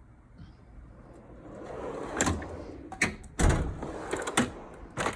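Steel tool box drawers sliding on their runners and banging to a stop: a rolling slide that builds for about half a second, then a run of sharp metallic knocks, the loudest about three and a half seconds in.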